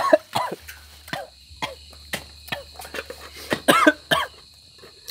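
Light clicks and taps on stacked stainless steel bowls as hands work over them, with a few short throaty vocal bursts near the start and again about three and a half to four seconds in. Crickets chirp steadily behind.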